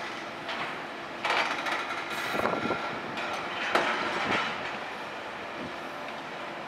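Heavy machinery running, with two louder stretches of metallic screeching and grinding, one from about a second in and one near the middle.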